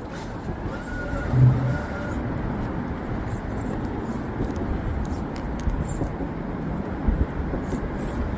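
RC rock crawler creeping slowly over rocks: small ticks and scrapes of the tires and chassis on the rock over a steady low rumble, with a short louder knock near the end.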